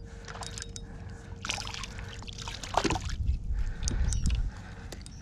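Water splashing and sloshing at the side of a kayak as a small hooked tailor is played in, with scattered light clicks and knocks.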